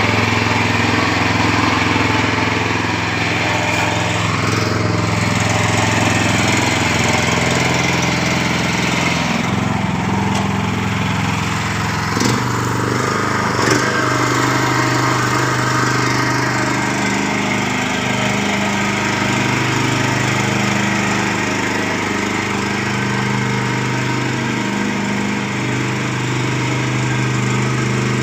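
Mini rotavator's small engine running steadily under load while tilling, with two sharp knocks about twelve and fourteen seconds in.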